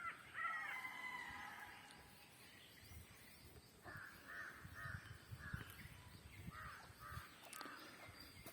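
Crows cawing: short harsh calls, several near the start and a quick run of four or five about halfway through, faint over low scuffing.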